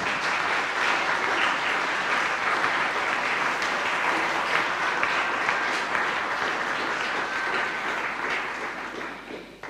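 Audience applauding, a steady crowd clapping that dies away near the end.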